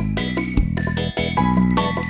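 Background music with a steady beat and a pitched melody.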